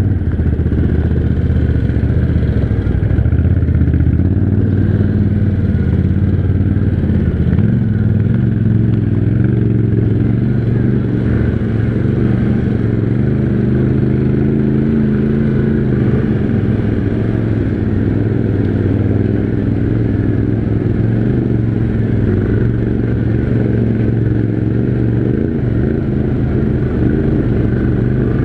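Yamaha Grizzly 700 ATV's single-cylinder engine running under way, its note rising and falling with the throttle: it climbs a few seconds in and again around the middle, then settles lower.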